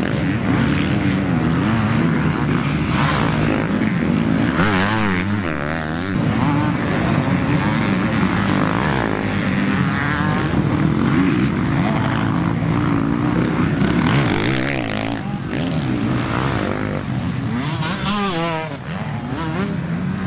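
Several motocross bikes racing on a dirt track, their engines revving up and down as they pass and go through the gears, with quick warbling revs about five seconds in and again near the end.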